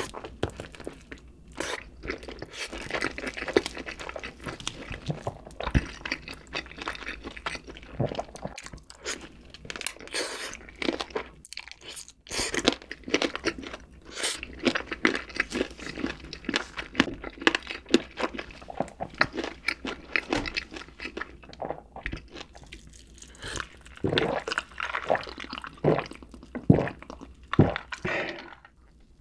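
A person crunching and chewing fast food in a dense run of crisp crackles and wet chewing, which stops abruptly shortly before the end.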